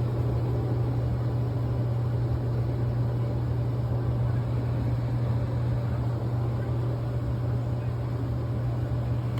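Euhomy 850W portable clothes dryer running with a steady low hum and a rush of air, hot but with its drum not turning, which the owner takes for a fault.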